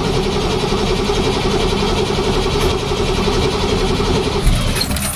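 Ford Pinto engine cranking on its starter motor in a cold start after four months of sitting, turning over steadily without catching. A single louder pop comes about four and a half seconds in, and the cranking stops soon after.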